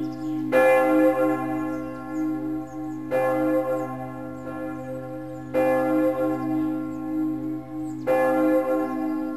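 A bell struck four times, about every two and a half seconds, each strike ringing on and fading over a low steady drone.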